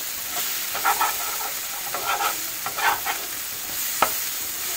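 Thick onion-tomato masala paste sizzling in a hot pan while a metal spoon stirs and scrapes it in short strokes, with one sharp knock about four seconds in. The masala is fried to the stage where it leaves the pan and no longer sticks.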